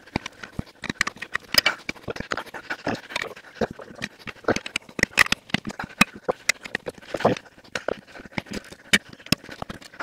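Steel tyre irons clinking, knocking and scraping against a wheel rim at irregular moments as a 4x4 tyre's bead is levered over the rim by hand, with a few grunt-like sounds of effort among them.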